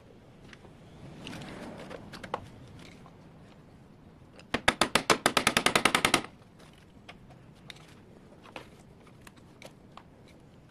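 A fast, even rattle of about sixteen sharp metallic clicks, lasting about a second and a half, midway through. Scattered single knocks and clinks of metal parts being handled come before and after it.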